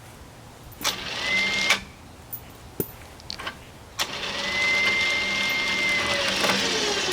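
A winch motor pulling a log through pulleys on a log arch. It runs briefly about a second in, with a few sharp clicks in the pause, then from about four seconds in it runs steadily under load with a thin high whine.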